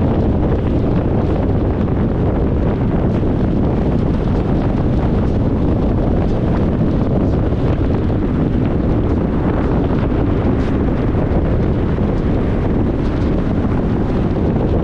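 Steady low rumble of road and wind noise from a car driving at an unchanging pace, with no engine revving or other events.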